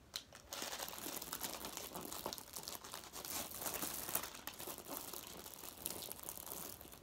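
Paper food bags and wrappers crinkling and rustling as they are handled and opened, with a continuous run of small crackles starting about half a second in.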